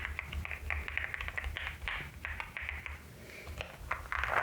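Fast, irregular typing on a LEOBOG HI75 mechanical keyboard with Nimbus V3 switches: a quick run of keystroke clicks.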